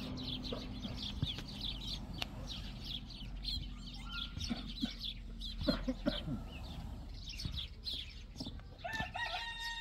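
Small birds chirping busily and continually, with chickens clucking and one long, level chicken call near the end. A few light taps and knocks in between.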